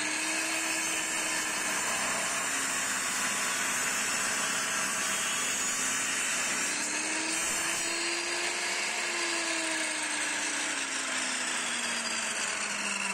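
Benchtop table saw's motor and blade running with a steady whine, its pitch slowly falling and rising again twice.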